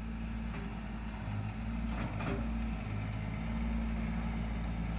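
Mini skid steer's engine running steadily at low speed, a little louder from about a second in.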